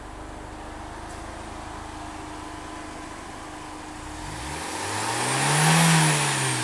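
VW GTI 20th Anniversary Edition's 1.8-litre turbo four-cylinder on its stock exhaust, running with a steady low rumble, then revving up to a peak about six seconds in and dropping back down.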